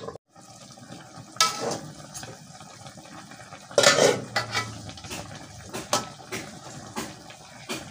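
Slotted spatula scraping and knocking against an aluminium wok while turning chicken pieces in simmering spiced broth. There are sharp clatters, the loudest about four seconds in, and a run of smaller knocks after it.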